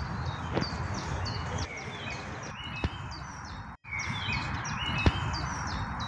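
Small songbirds chirping over and over, short high chirps several a second, over a steady background noise, with a few sharp taps. The sound cuts out for an instant about two-thirds of the way through.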